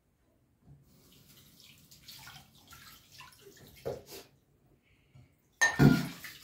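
Dishes being washed by hand in a kitchen sink: irregular splashing of water with small knocks of crockery, then one louder clunk near the end.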